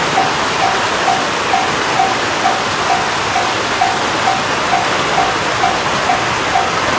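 Japanese level-crossing warning bell ringing: a single electronic tone repeating evenly about twice a second, over a steady rushing noise.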